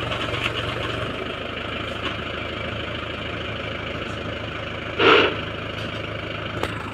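Mahindra 415 DI tractor's diesel engine running steadily while its hydraulic tipping trolley is raised to dump a load of soil. A brief loud noise cuts in about five seconds in.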